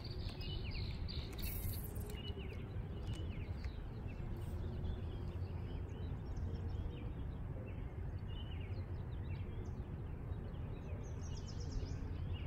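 Wind rumbling steadily on the microphone, with small birds chirping over and over.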